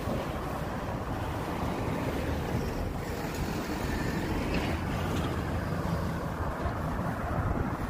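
Wind buffeting the microphone, a steady rumbling hiss, over road traffic.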